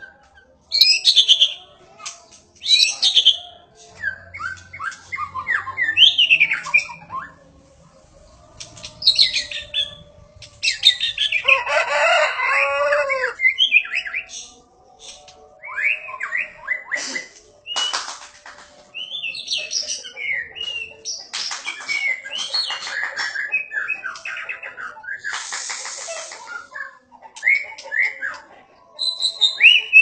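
White-rumped shama (murai batu) singing vigorously: a run of varied whistled phrases, quick trills and rapid chattering or rattling series, with short pauses between phrases. A lower, denser chattering phrase comes near the middle.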